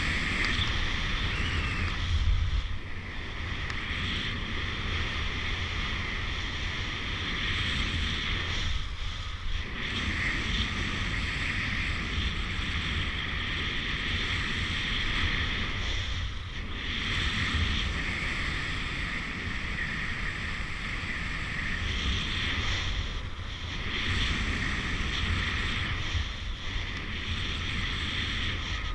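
Wind rushing over an action camera's microphone in paraglider flight: a steady low rumble with a higher hiss, easing briefly a couple of times.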